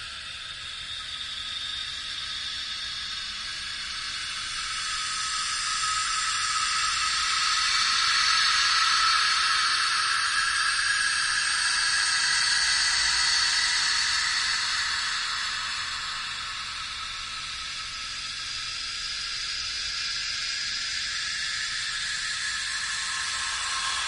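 A hissing ambience of noise, mostly high-pitched. It swells louder over the first half, eases off about two-thirds of the way through, then rises again near the end.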